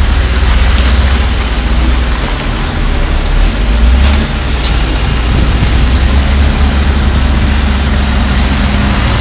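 Heavy diesel engines running steadily: the Scania 164 tipper truck's V8 close by and a Volvo L70F wheel loader working gravel. A brief hiss with a sharp click about four and a half seconds in.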